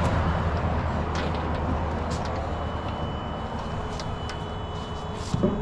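Pickup truck engine idling with a steady low rumble, with a few light clicks over it and a faint high steady tone starting about halfway.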